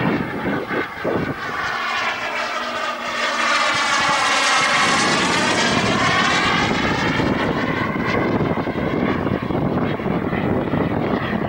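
Radio-controlled Viper jet model flying past. Its engine rush swells as it comes closer and stays loud, with a sweeping tone that dips and rises again as it goes by.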